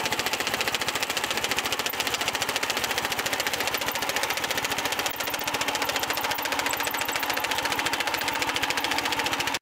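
Two-wheel tractor's small petrol engine running steadily under load while its 130 cm reciprocating cutter-bar mower cuts tall meadow grass, giving a fast, even mechanical chatter.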